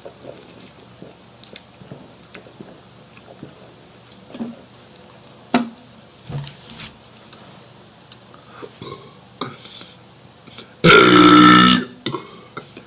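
A man's loud belch lasting about a second near the end, burped as a letter of the alphabet. Before it, only faint clicks and mouth sounds.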